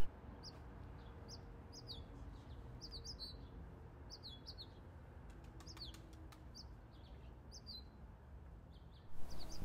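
Small birds chirping: short high notes, many sliding down in pitch, repeated every second or so, faint over a low steady background rumble.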